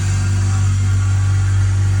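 BMW E46 330Ci's straight-six engine running steadily on a cold start, with a whining noise over it.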